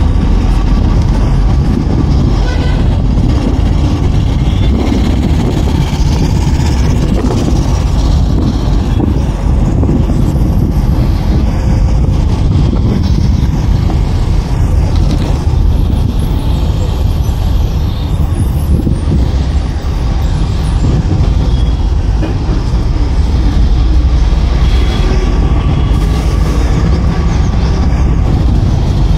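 MSRTC bus on the move, heard from inside the passenger cabin: a loud, steady low engine rumble with road and body noise.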